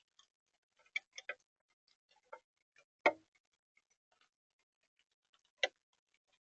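Irregular sharp taps and clicks on a bird-feeder camera's housing, from raindrops or birds landing and pecking: a quick cluster about a second in, then single louder taps about three and five and a half seconds in.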